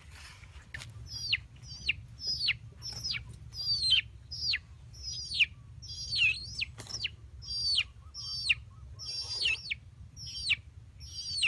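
A chicken chick peeping over and over, loud shrill peeps that each slide sharply down in pitch, about one and a half a second, over a steady low rumble.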